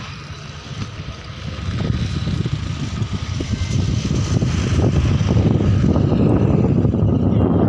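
Strong wind of an approaching dust storm buffeting the microphone with a deep, gusty rumble that grows louder about a second and a half in.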